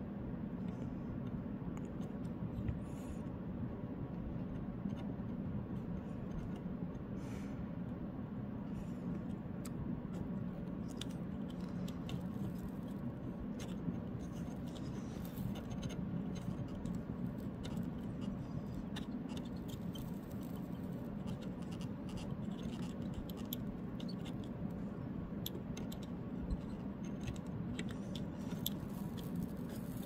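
Steady low hum with faint scattered ticks and small scrapes of a soldering iron tip and a metal pick working against the typewriter's escapement dog.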